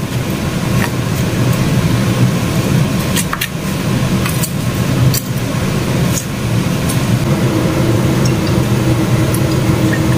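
Steady low machine hum, with scattered sharp knocks of a kitchen knife striking a wooden cutting board as young jackfruit is sliced.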